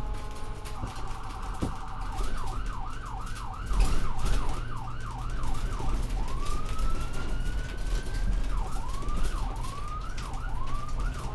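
Ambulance electronic siren and horn heard from inside the vehicle. It opens on a steady multi-tone horn blast, switches to a rapid warble, then a fast yelp of about three up-and-down sweeps a second, one long rising wail, and yelp again near the end. A low engine and road rumble with rattles runs underneath.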